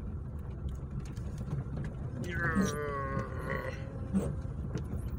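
Inside a moving car's cabin on a rough dirt track in rain: steady low engine and road rumble with scattered ticks of rain and small knocks. About two seconds in, a wavering vocal sound rises above it for just over a second.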